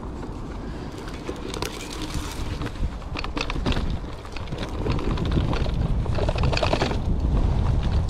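Wind buffeting the action camera's microphone, over the clatter and rattle of a Bafang BBS02 750 W e-bike riding over rough off-road ground. It gets louder from about halfway through.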